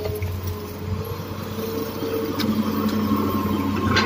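Hydraulic excavator's diesel engine running steadily while it works, its tone lifting a little about halfway through, with one sharp knock near the end.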